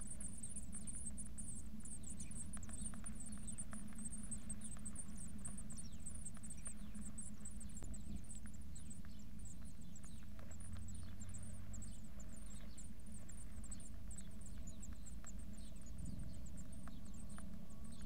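Blue tit nestlings giving high-pitched begging calls, a dense squeaky twittering that thins out as the brood settles after a feed, over a steady low hum.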